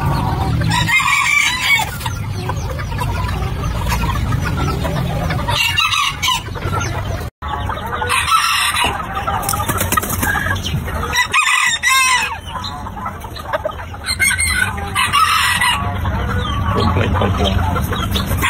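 Bantam roosters crowing, several crows a few seconds apart, with hens clucking between them.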